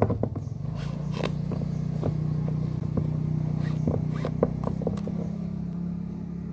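White football boot's lace being pulled out through its eyelets: short scrapes and clicks of the lace. Under it runs a steady low engine hum, from about a second in, that shifts slightly higher near the end.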